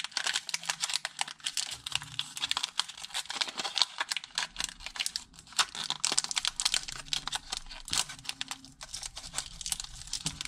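Foil wrapper of a Pokémon TCG Crimson Invasion booster pack crinkling as it is opened by hand: a dense, unbroken run of small crackles.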